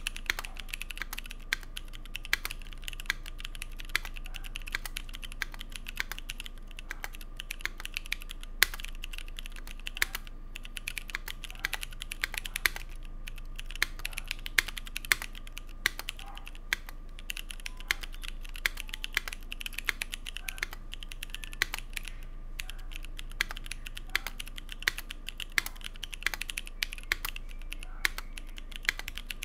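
Continuous typing on a Keycult 1/60 mechanical keyboard with C3 Equalz Dragonfruit tactile switches, an aluminum plate and GMK keycaps: a steady run of sharp keystroke clacks, several a second, with uneven accents.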